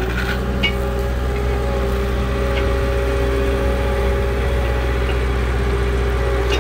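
Engine of the hydraulic tree spade machine running at a steady, even speed, with a low, unchanging hum.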